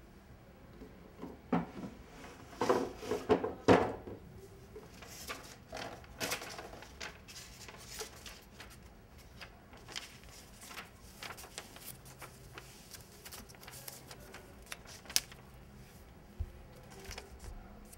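A wooden bedside-table drawer knocked and pulled open, with a cluster of loud clatters in the first few seconds, followed by sheets of paper rustling and crinkling as they are taken out and handled.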